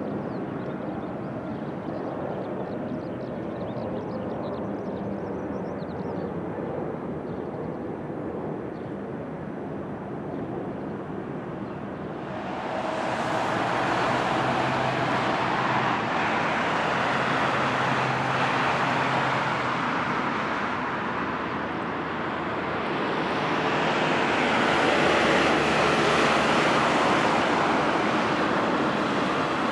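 Jet airliner on final approach passing close overhead. A low distant rumble swells suddenly about twelve seconds in into loud jet engine noise, easing briefly and then peaking again near the end.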